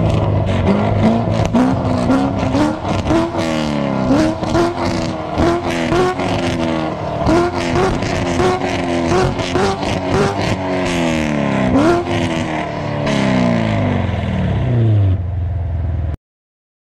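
C7 Corvette Grand Sport's 6.2 L LT1 V8, breathing through long-tube headers and a catless X-pipe, revved over and over from idle in quick blips, each rev rising and falling, with sharp crackles between them. Near the end it drops back to idle, then the sound cuts off suddenly.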